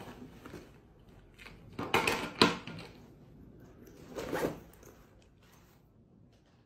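Backpack zipper being pulled, in two short runs: a louder one about two seconds in and a softer one about two seconds later.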